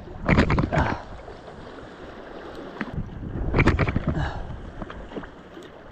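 Sea water surging and splashing against shore rocks, two surges about three seconds apart over a steady wash of water and wind noise.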